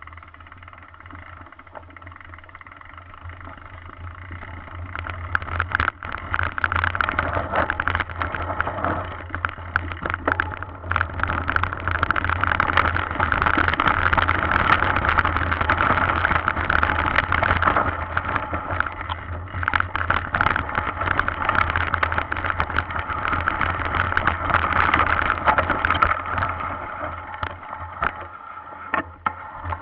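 Mountain bike rattling and clattering over a rough trail littered with twigs, bark and stones, with tyres crunching on the loose debris and a steady buzzing tone underneath. Quieter at first, it gets loud about five seconds in and eases off near the end.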